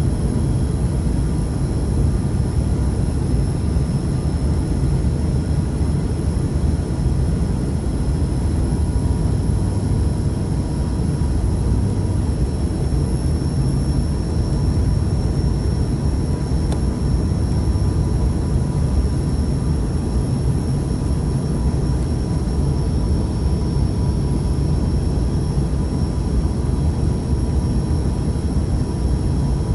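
Steady low rumble of an airliner in flight, jet engines and airflow, with a faint steady whine above it.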